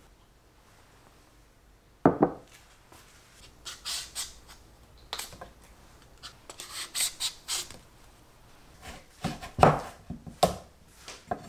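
Butternut squash being peeled with a vegetable peeler, a run of short scraping strokes, then cut with a kitchen knife on a wooden cutting board, several knocks as the blade hits the board. A sharp knock comes about two seconds in, after a quiet start.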